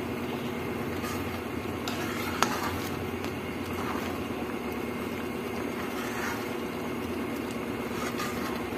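Thickened coconut-and-sugar bukayo mixture bubbling in a pan as a spatula stirs and scrapes it, over a steady low rumble. One sharp knock of the spatula a little over two seconds in.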